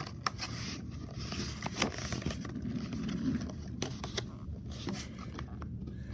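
Plastic blister-card toy package crackling, scraping and clicking in the hands as it is pried open. It is stiff and hard to open.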